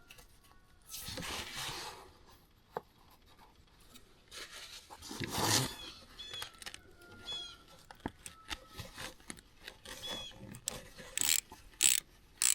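Hand-work on an ATV's oil filter cover: light metal clicks and taps while the small cover bolts are started by hand. Two longer rubbing scrapes come about a second in and about five seconds in, and a run of sharp clicks comes near the end.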